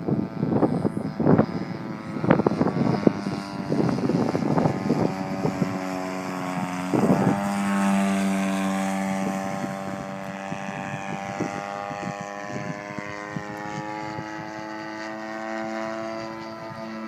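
RC model airplane's motor and propeller flying overhead. For the first several seconds it comes in uneven bursts, then from about seven seconds in it settles into a steady drone whose pitch falls slowly.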